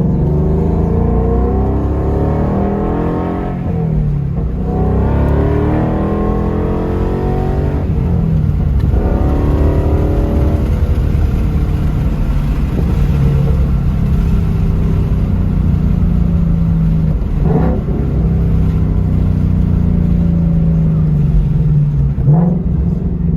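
Ford Mustang V8 exhaust under acceleration: the engine note climbs and falls back at each gear shift, three times in the first half, then runs at a fairly steady pitch.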